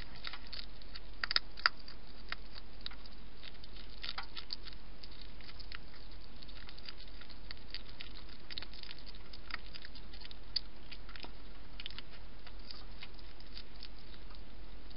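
Wild hedgehog eating from a plastic dish: irregular sharp clicks and crunches of chewing, coming in bunches with short pauses between them, over a steady low electrical hum.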